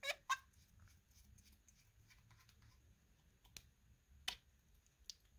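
Faint plastic clicks and ticks as a white plastic nosepiece is unscrewed from the plastic body of a serological pipette controller. A short cluster of clicks comes at the start, and a few isolated sharper clicks follow in the second half.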